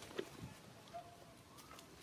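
Faint short animal calls at one steady pitch, recurring about once a second, with a fainter rising-and-falling call near the end and a soft click near the start.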